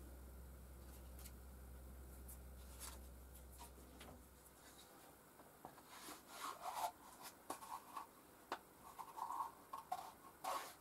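Faint handling sounds: a plastic pipe ring and a wooden base being handled and rubbed together, with scattered small clicks and scrapes, mostly in the second half. A low background hum stops about four and a half seconds in.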